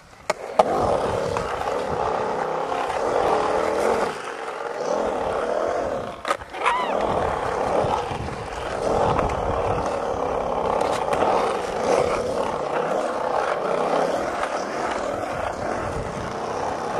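Skateboard wheels rolling over a concrete skatepark, a continuous rumble, with a sharp clack of the board less than a second in and a brief break with a few knocks around six seconds.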